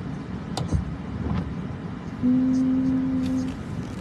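Steady low rumble of a car and traffic, with two short clicks in the first second and a half. About two seconds in, a steady single-pitched tone is held for just over a second and is the loudest sound.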